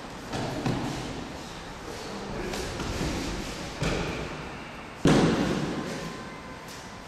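Bodies thudding onto the training mats as partners are thrown and break their falls: several separate thuds, the loudest about five seconds in, each echoing in the large hall.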